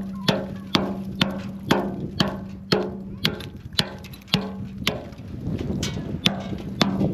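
Background music with a steady percussive beat, a sharp strike about twice a second over a held low note.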